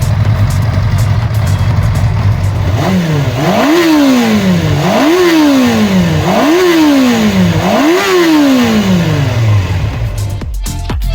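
Yamaha FZ400R's inline-four engine revved four times in a row. Each rev climbs quickly and falls back more slowly to idle.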